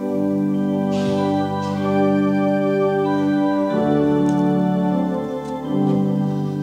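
Church organ coming in suddenly with loud held chords that change every second or two.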